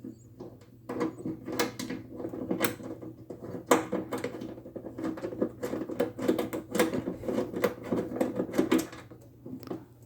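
Irregular metallic clicks and rattles of a bolt held on a socket as it is fitted through the trunk latch and threaded in by hand; they run from about a second in until near the end.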